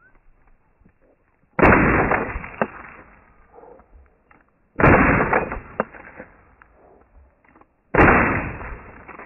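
Shotgun fired three times, about three seconds apart, each a sharp loud blast that trails off over about a second.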